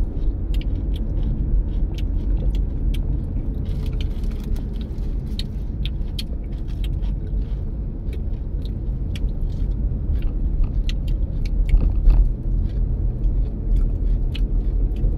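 Toyota Prius driving along at steady speed, heard from inside the cabin: a low road-and-tyre rumble with frequent light clicking rattles on top.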